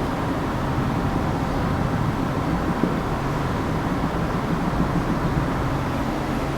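Steady background noise with a low hum, even throughout, with no clear events.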